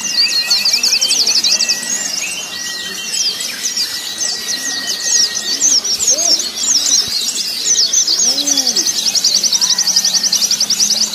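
Many white-eyes (pleci) singing at once in fast, high chattering trills, one over another, as at a songbird contest. Lower rising-and-falling calls come in underneath around the middle.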